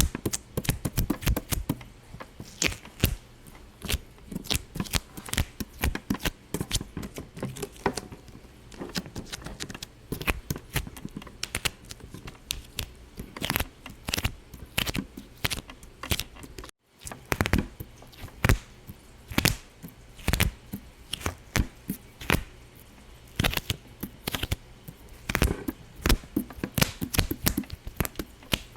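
Dense, irregular sharp pops and clicks, several a second, briefly cut off to silence about seventeen seconds in.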